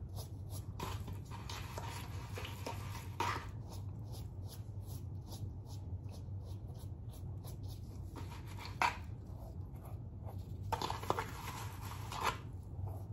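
Soft, scattered rustles and crinkles of hands working through hair with a plastic bag or glove, over a steady low hum.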